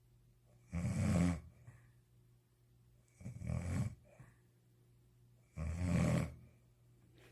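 A sleeping man snoring: three loud snores about two and a half seconds apart, each lasting under a second.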